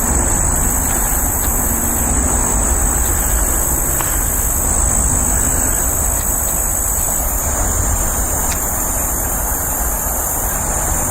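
Steady high-pitched insect chorus of crickets, over a constant low rumble of background noise. There are a couple of faint ticks, about four seconds in and again past the eight-second mark.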